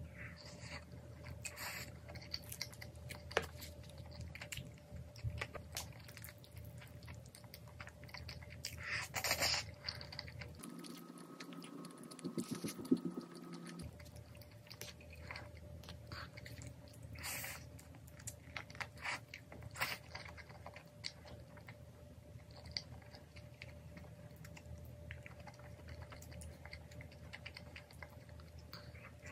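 Close-miked chewing and eating of cheese-topped spicy braised chicken, with wet mouth sounds and occasional sharp clicks of chopsticks and a spoon against the bowl and tray.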